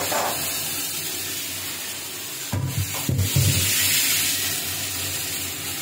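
Freshly added pui shaak (Malabar spinach) with aubergine, pumpkin and potato sizzling in hot oil in a wok, a steady hiss that slowly eases. A few dull knocks sound about two and a half to three and a half seconds in.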